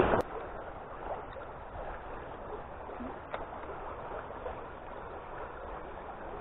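Shallow creek water running over a stony bed: a steady babbling rush. A louder noise cuts off abruptly just at the start.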